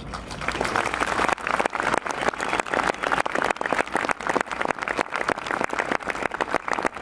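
Crowd applauding: dense clapping from many hands, swelling about a second in and then holding steady.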